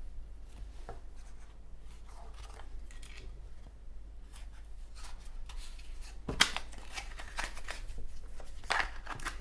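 Hands working the packaging of a Zippo lighter: scattered rustling and small sharp clicks as the seal is removed and the box is opened, with the loudest click about six and a half seconds in.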